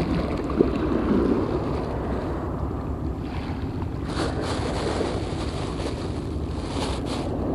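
Wind buffeting the camera microphone on a seaside wall: a steady low rumble, with a stretch of crackly rustling from about four seconds in.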